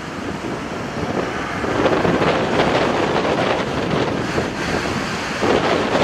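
Wind buffeting the microphone over the steady rumble of an Airbus A320-family airliner's jet engines at low power while it taxis. The wind gusts louder about two seconds in and again near the end.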